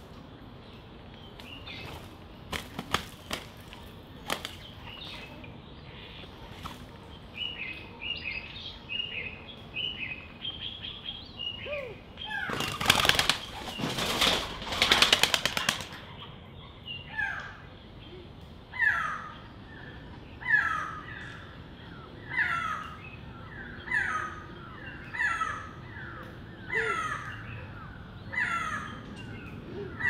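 Doves' wings clattering as several birds take off from a seed feeder, the loudest sound, in a burst lasting about three seconds near the middle. Before it come soft chirps and a few clicks. After it a bird gives a steady series of harsh, falling calls, one about every second and a half.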